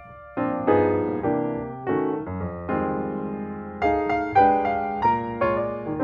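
Background piano music: a melody of struck notes, each fading after it sounds, resuming after a brief pause about half a second in.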